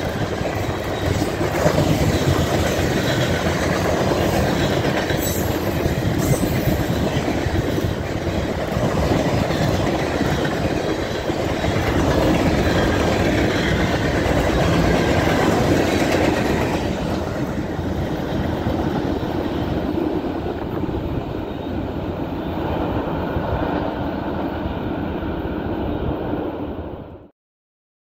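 Freight train cars rolling past, a steady loud rumble of steel wheels on the rails that cuts off suddenly near the end.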